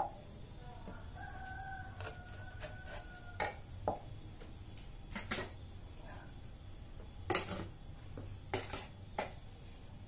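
Scattered sharp taps and knocks as nut-grass tubers are cut with a small knife on a board and a plastic bowl is handled, the loudest knock about seven seconds in. A rooster crows once in the background from about a second in, lasting a couple of seconds.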